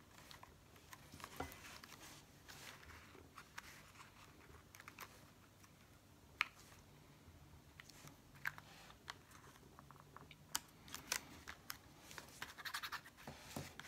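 Faint rustling and crinkling of paper and card as hands press and smooth a glued paper piece onto a pop-up card, with scattered small clicks and taps. The sharpest click comes about six seconds in, and the rustling gets busier near the end.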